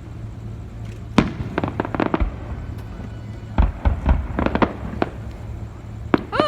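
Aerial fireworks going off in clusters of sharp bangs and crackles as the show's finale begins: one bang about a second in, a quick run around two seconds, another run from about three and a half to four and a half seconds, and a single bang near six seconds.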